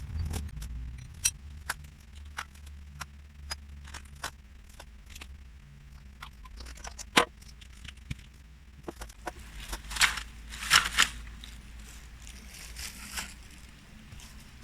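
Fatwood kindling being worked by hand for a fire: a run of irregular sharp snaps and cracks, with two louder scraping bursts about ten and eleven seconds in.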